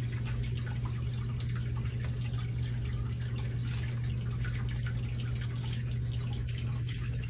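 Steady trickle of running water over a constant low hum, with faint scattered clicks.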